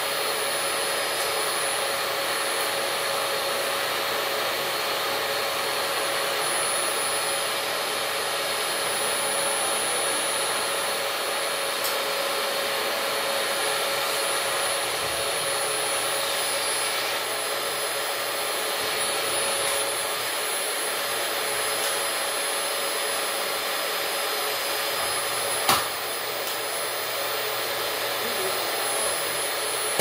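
2008 Dyson DC25 Animal upright vacuum cleaner running steadily: an even rush of air with a steady high whine. One sharp click comes near the end.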